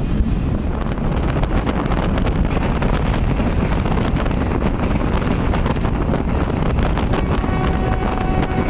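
Passenger train running at speed, heard from on board: a steady rush of wind over the microphone with the rumble and rattle of the wheels on the track.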